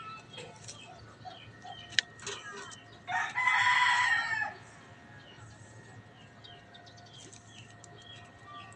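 A rooster crows once about three seconds in, lasting about a second and a half, with small birds chirping throughout. A single sharp click comes about two seconds in.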